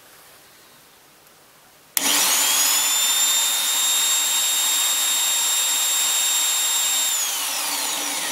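Biax electric hand scraper switched on about two seconds in: its motor whines up quickly to a steady high pitch and runs. Near the end it is switched off and the whine falls in pitch as it runs down. This is a test run after the stroke length was reset.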